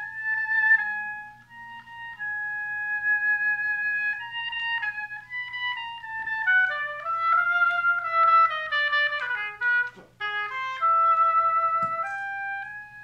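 Marigaux M2 oboe played solo: long held high notes, then a quick run that falls and climbs again, a short break about ten seconds in, and another held note, demonstrating steady intonation in the upper register.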